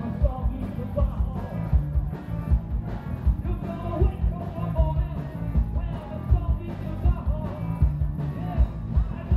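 Amplified music carrying from a marquee in a nearby pub garden: a steady bass drum beat and bass, with singing faintly over it, heard mostly in the low end.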